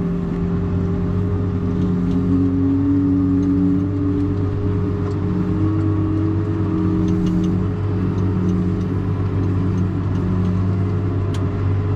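Tractor engine running steadily under light load, heard from inside the cab while reversing with a loaded beet trailer. A second higher tone joins in about two seconds in and fades away a few seconds later.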